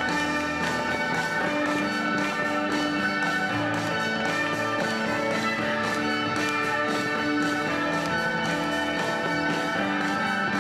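Orchestral music with brass instruments, playing sustained notes at a steady level.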